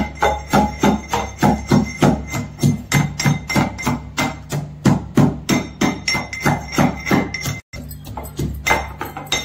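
Steel pestle pounding cashews and almonds in a small steel mortar: a steady run of ringing metal strikes, about three a second, crushing the nuts coarsely.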